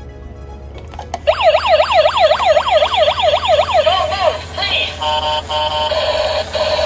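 Toy fire-service van's battery-powered electronic sound module switched on with a click about a second in, playing a fast rising-and-falling siren wail, about three sweeps a second. Near the middle it changes to a choppier electronic pattern of short steady tones.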